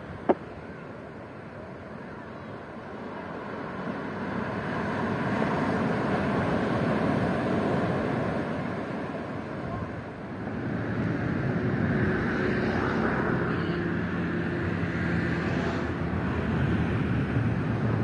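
Sea surf and wind on the microphone, swelling twice, with a sharp click right at the start.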